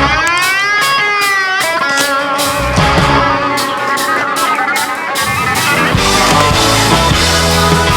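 Background rock music: electric guitar lead with bends over drums; the bass and drum beat comes back in about six seconds in.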